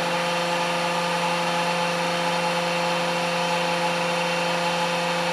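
Electric motor and hydraulic pump of a JKL500 hose crimper running steadily with an even hum, while the machine is cycling its crimping dies.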